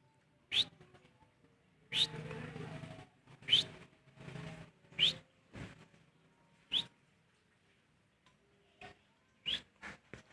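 Lovebirds giving short, sharp chirps that sweep upward in pitch, about six of them spread out with pauses between. A rustling noise runs for about a second after the second chirp and more briefly after the third.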